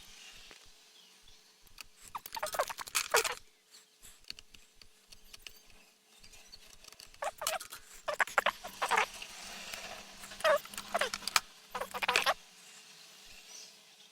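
Small scratching, scraping and clicking noises from hand tools working on a small circuit board, in three bursts about two, seven and ten seconds in.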